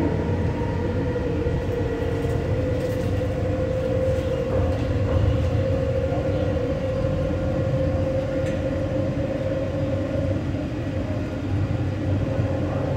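Bombardier APM-100 rubber-tyred people-mover car running along its guideway, heard from inside the car: a steady low rumble with a steady whine that fades about ten seconds in.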